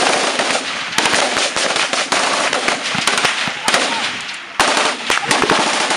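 Heavy rifle gunfire: a dense run of shots in rapid, overlapping bursts, with one especially sharp, loud crack a little past the middle.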